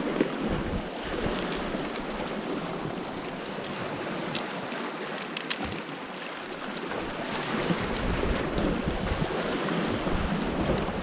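Sea surf washing against a rocky shore, a steady rushing hiss, with some wind. A few light clicks come in around the middle.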